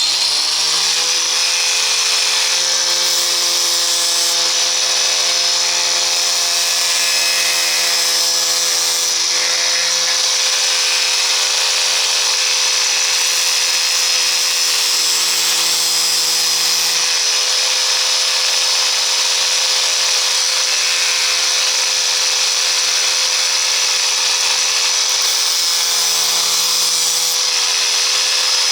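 Electric grinder switched on, spinning up in the first second and then running steadily, with a hiss of steel against the wheel that shifts every few seconds as the blades of dull fabric shears are ground.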